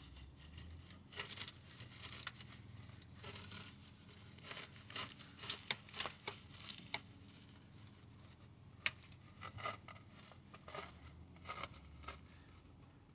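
Faint, irregular rustling, scraping and clicking of hands working on a swamp cooler, with one sharper click about nine seconds in.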